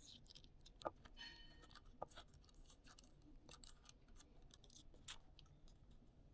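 A few faint clicks and small handling sounds of a tripod quick-release plate being fitted.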